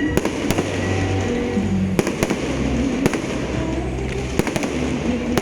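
Fireworks going off in irregular sharp bangs, sometimes two close together, over background music with held low notes.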